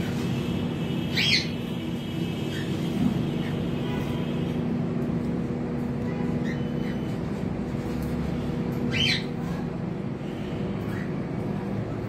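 Cockatiels calling: two loud, short, rising screeching calls, about a second in and again about eight seconds later, with fainter short chirps between, over a steady low hum.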